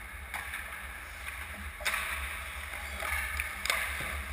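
Ice hockey play in a rink: skate blades scraping on the ice and three sharp clacks of sticks and puck, over a low steady hum.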